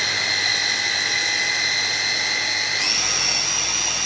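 Electric mini chopper running at full speed, blending cooked asparagus with eggs and grated cheese: a loud, steady motor whine whose pitch steps up about three seconds in.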